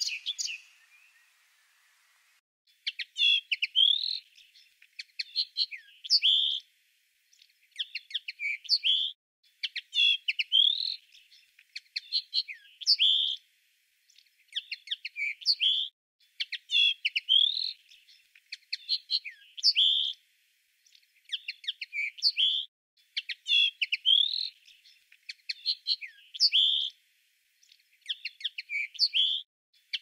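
A songbird singing the same short phrase of quick chirps and rising notes again and again, about every two seconds, starting about three seconds in after a brief earlier call fades out.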